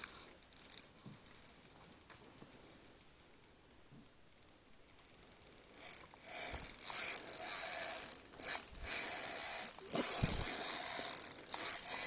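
Spinning reel clicking rapidly while a hooked pike is played: faint fast ticking at first, turning into a louder continuous rattle from about halfway through.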